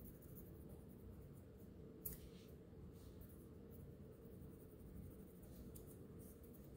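Faint scratching of a small folded piece of sandpaper rubbed by hand along the side of a chrome-plated watch case, sanding it to a satin finish, with one small click about two seconds in.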